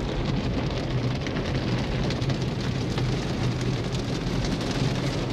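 Automatic car wash water jets pelting the car's windows and body, heard from inside the cabin as a steady, dense rain-like drumming and hiss, with a low steady hum underneath.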